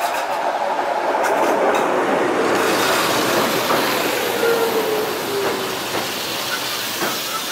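Electric train running along the track: a steady rail rumble with a few sharp clicks of the wheels over the rails, and a faint tone that slides slowly downward midway.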